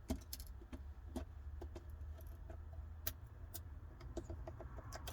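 Irregular small clicks and taps of a tool on a phone's internals as flex-cable connectors are unclipped, over a low steady hum.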